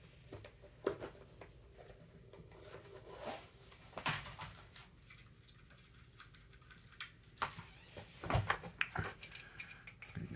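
Scattered light clicks, clinks and a few soft knocks of small metal parts being handled on a workbench, sparse at first and busier near the end.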